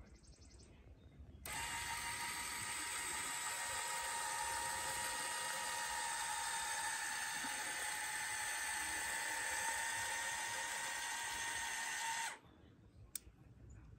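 Electric linear actuator's motor whining steadily as it extends and swings a hinged TV-mount arm down. It starts about a second and a half in and cuts off suddenly near the end, followed by a single short click.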